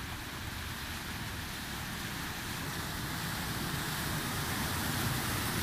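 A small hatchback car driving through deep floodwater, its wheels and body pushing and churning a wave of water, with the engine running under the rush of water. The sound grows gradually louder as the car comes closer.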